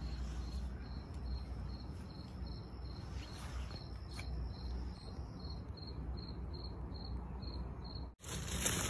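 A cricket chirping in a steady rhythm, about two to three high chirps a second, over a low rumble of wind or handling on the microphone. Near the end the sound cuts off abruptly and louder noise follows.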